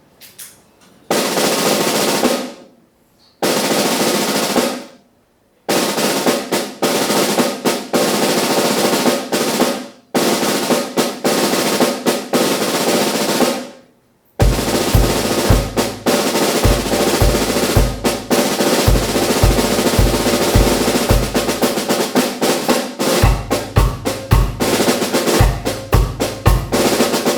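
Drum kit played solo: a series of snare drum rolls, each building and then stopping abruptly. About halfway through, the bass drum joins in with rapid kicks under continuous snare playing.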